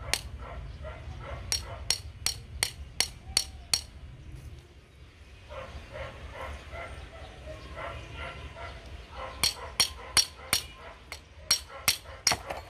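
Hand hammer striking a metal rod to drive the oil seal and bearing out of a power steering rack's pinion housing. Sharp metallic blows about three a second for the first four seconds, a pause of several seconds, then another run of blows near the end.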